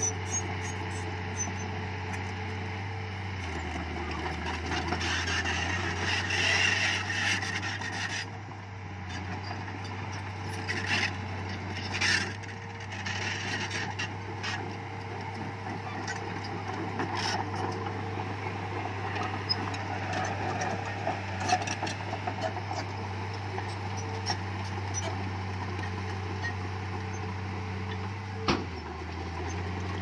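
Diesel engine of heavy earthmoving machinery running steadily, with scattered scrapes and knocks. The engine note deepens for a couple of seconds a few seconds in and again near the end.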